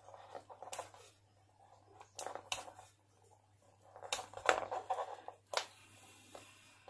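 Thin plastic packaging being cut with a utility knife and pulled apart: scattered crackles and sharp clicks in short clusters, loudest about four and a half seconds in.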